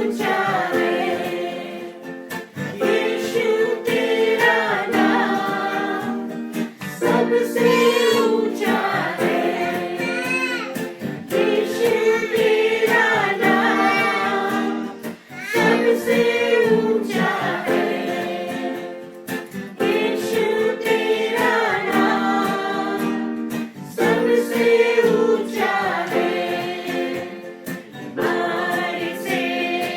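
A worship team of several voices singing a devotional worship song together in phrases, over a light plucked-string accompaniment.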